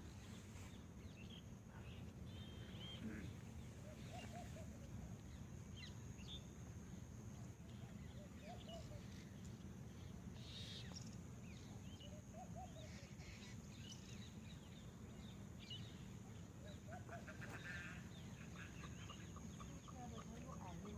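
Faint wild bird calls: a short low call repeating about every four seconds among scattered higher chirps, over a thin steady high-pitched drone.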